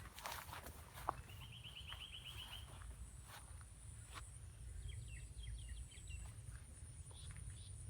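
Osprey calling: a quick run of about ten short whistled notes, then a few seconds later a second series of short down-slurred notes. A steady high insect drone and low wind rumble run beneath.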